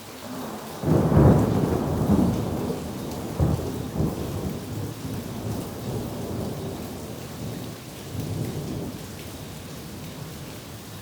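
Thunder: a loud clap about a second in, then rumbling with two sharper cracks a few seconds later, dying away over several seconds. Steady rain falls throughout.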